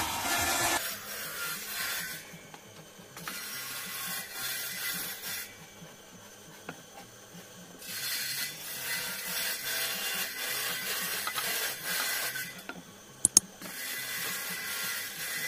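Handheld wood router (trimmer) worked along a wooden jig: stretches of hissy cutting and rubbing noise broken by quieter pauses, with two sharp knocks near the end.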